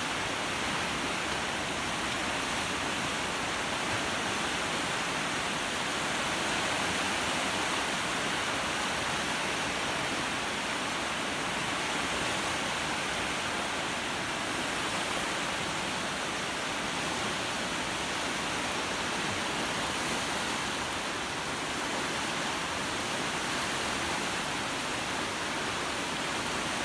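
Steady, even rush of fast-flowing water from the Hijikawa river.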